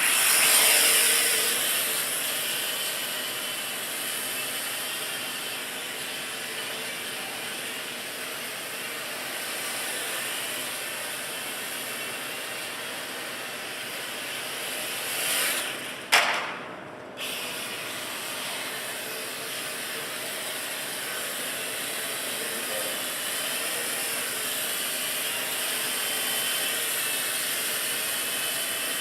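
WL Toys V949 micro quadcopter's four small electric motors and propellers buzzing steadily in flight. About sixteen seconds in there is a sharp knock and the buzz drops out for about a second, then resumes.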